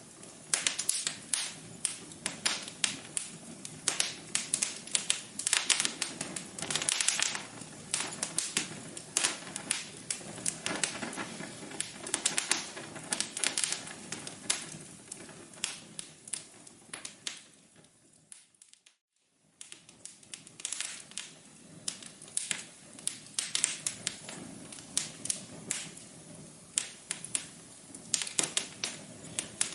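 Wood fire crackling in a fireplace, with dense, irregular sharp pops and snaps. About two-thirds of the way through it fades out to silence for about a second, then resumes.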